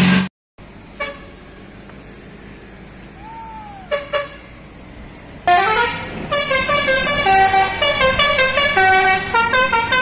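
Telolet musical air horn on a Raffael KNP Trans tour bus playing a fast tune of short, steady notes that jump between pitches. It starts about five and a half seconds in, after a few seconds of quiet background.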